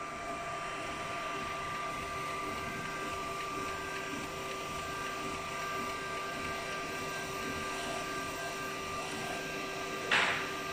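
A KAIBAICEN A3 UV flatbed printer running as it prints on shoes: a steady mechanical hum carrying a couple of steady whining tones from its cooling fans and carriage drive. A short sharp hiss comes near the end.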